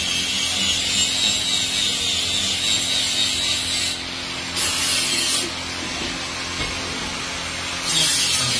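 Iron skimmer stirring and scraping in a crucible of molten aluminium: a steady rasping, scraping noise over a low steady hum. The high hiss drops away briefly about four seconds in and again for a couple of seconds before coming back near the end.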